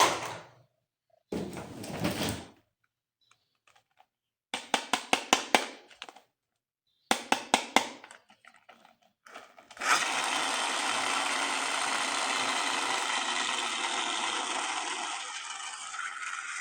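Electric toy gun being handled: runs of quick plastic clicks, about five a second, then its motor whirring steadily for about seven seconds, dropping in level near the end.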